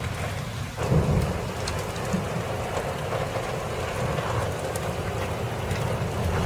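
Thunderstorm rain and wind: a steady rushing with a deep rumble underneath, growing louder about a second in.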